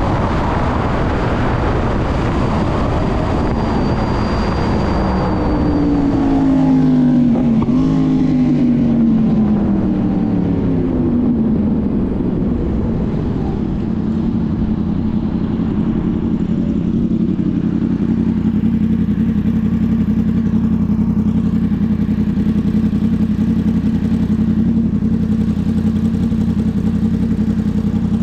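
Road traffic heard from a riding motorcycle: first wind and road noise, then a pitch that falls over several seconds as a vehicle slows or passes, then a steady low engine hum.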